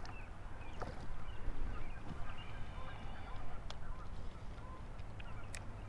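Wind rumbling on the microphone, with faint, distant bird calls and a few light clicks.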